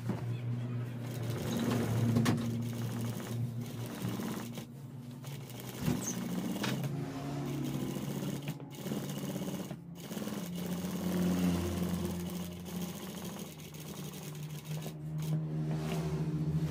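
Industrial lockstitch sewing machine stitching through fabric, running at changing speeds with a few brief stops about halfway through and again near the end.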